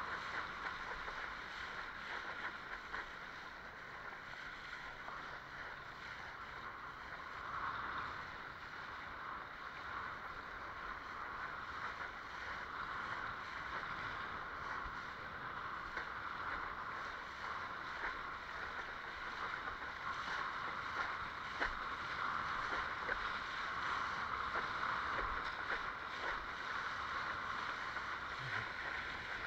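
Steady rush and spray of water along the hull of a Fanatic Ultra Cat windsurfing longboard sailing at speed.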